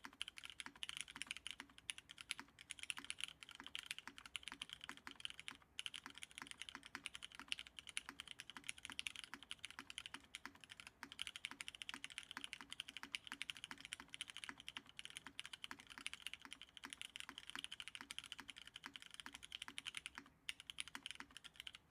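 Fast, continuous typing on a Dunkin' 60 mechanical keyboard with stem-lubed MX Nixie switches, an aluminum plate and CRP R4 keycaps: a dense stream of key clacks. It breaks briefly about six seconds in and again shortly before the end.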